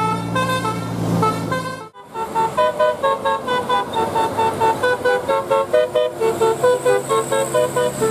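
Bus 'telolet' musical horn playing a melody of short notes, with a bus engine running under it for the first two seconds. The sound cuts off abruptly about two seconds in, then a quicker tune of short horn notes follows, about three or four notes a second.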